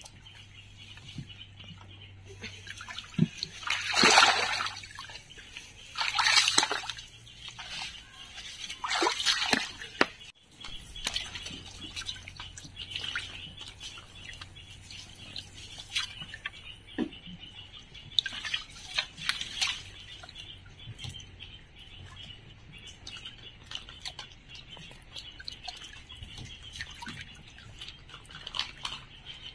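Shallow stream water splashing and sloshing as it is worked by hand. Three loud splashes come in the first ten seconds, then lighter splashes and drips while a mesh fish trap is lifted out and handled.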